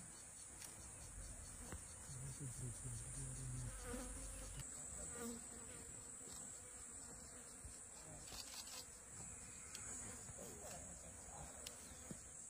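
Faint, steady high-pitched drone of insects in the bush.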